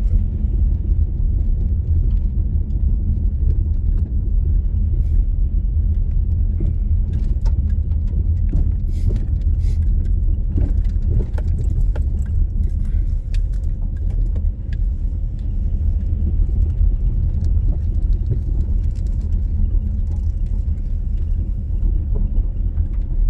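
Low, steady rumble of a car driving slowly, heard from inside the cabin, with scattered small clicks and rattles over it.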